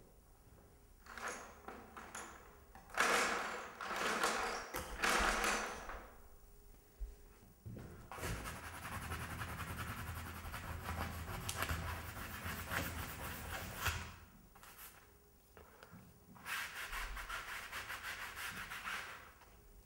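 A painter's hand scrubbing and rubbing across a canvas: scratchy friction in about four bouts, the longest lasting some six seconds in the middle, with short pauses between.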